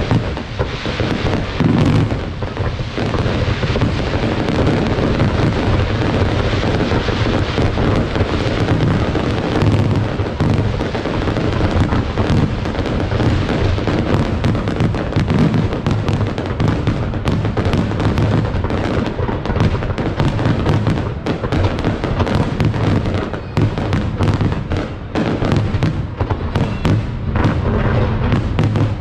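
Fireworks display going off in a continuous, dense barrage of bangs and crackling pops, the separate cracks becoming sharper and more distinct in the second half.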